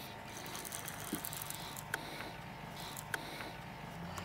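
Fishing reel being worked with faint, scattered clicks while a hooked fish is played on the line, over a low steady hum.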